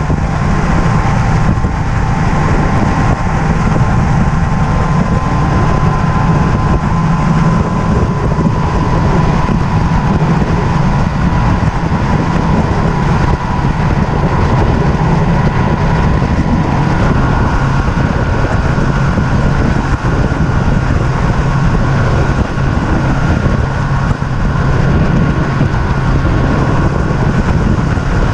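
Mercury OptiMax 200 HP outboard, a two-stroke V6, running steadily at speed as the bass boat crosses open water, with wind and water rushing past. The engine's pitch shifts slightly a little over halfway through.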